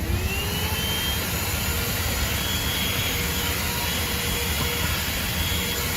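THISWORX 12V corded handheld car vacuum running with its brush attachment, sucking sand from car carpet. Its motor whine rises in pitch over the first second, then runs steady under a constant rush of air.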